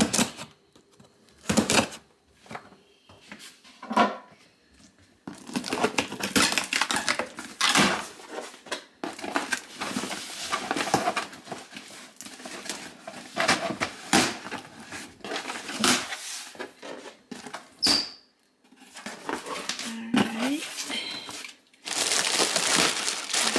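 Cardboard box being opened: a knife scraping through packing tape, then the cardboard flaps rasping and rustling as they are pulled open. Near the end, plastic air-pillow packing crinkles loudly under a hand.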